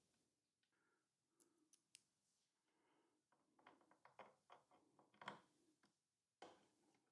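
Near silence with faint scattered clicks and taps, a cluster of them midway and one more near the end: small parts and screws being handled while a laser engraver's frame is assembled.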